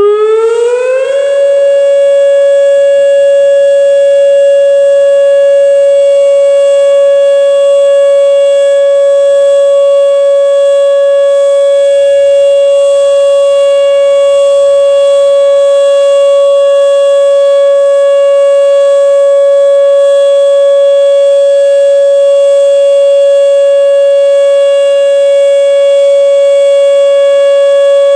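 Outdoor tornado warning siren sounding its steady alert signal in a routine test. It rises quickly in pitch in the first second, then holds one loud, unwavering note.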